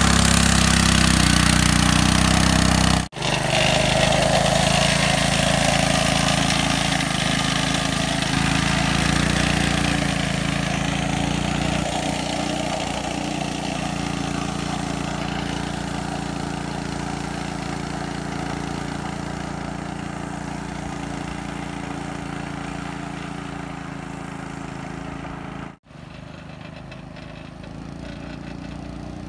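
KT196 go-kart's 196 cc single-cylinder four-stroke engine running steadily under load as the kart ploughs through shallow pond water, with water splashing. The engine gradually fades as the kart drives away.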